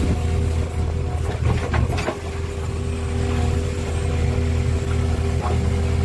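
JCB 3DX backhoe loader's diesel engine running steadily while the backhoe arm digs, heard from inside the cab. A few short knocks come between one and two seconds in, and another near the end.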